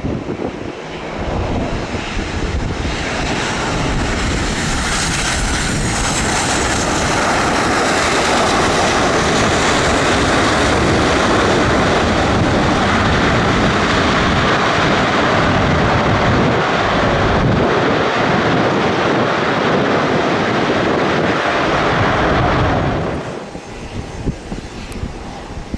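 A fixed-wing aircraft's engines at close range: the noise builds over the first few seconds to a loud, steady rush, then cuts off abruptly a few seconds before the end.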